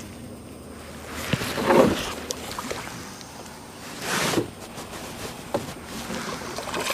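Water splashing beside a small boat in two loud bursts, about a second in and again about four seconds in, as a hooked fish thrashes at the surface near the boat, with a few light knocks.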